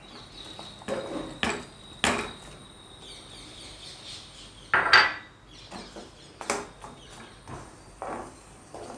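A spoon knocking and scraping against a kadai as lumps of jaggery go into tamarind pulp and are stirred in. There are a handful of scattered knocks, the loudest about five seconds in.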